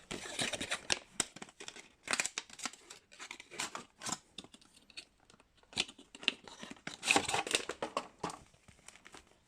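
Hands unwrapping packaging: irregular bursts of crinkling and tearing wrapping, mixed with small sharp clicks and taps.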